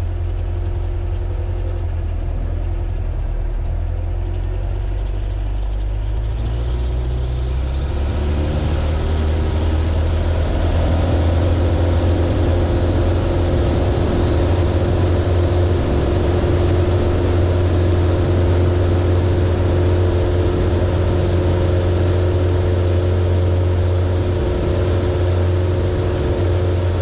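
Zenith CH 650 light sport aircraft's piston engine heard from inside the cockpit, opening up to full throttle for the takeoff roll about seven seconds in. It then runs steadily at full power, higher and louder than before, into the climb.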